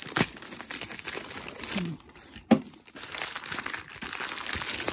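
Thin black plastic packaging bag crinkling and rustling as it is handled and pulled off a rubber car floor mat, a dense run of small crackles with one sharp, louder snap about two and a half seconds in.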